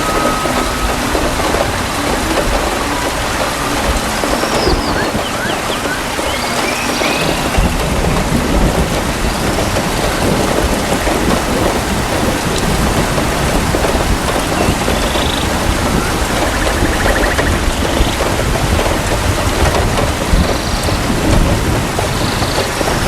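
Steady heavy rain with rolling thunder: a deep low rumble sets in about seven seconds in and carries on under the rain. A few faint high chirps sound now and then over it.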